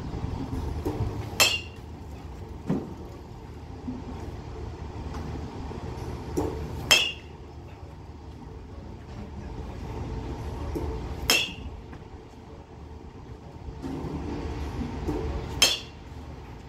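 Metal bat hitting pitched baseballs, four sharp ringing pings about every four and a half seconds, with a few fainter knocks between them over a steady low rumble.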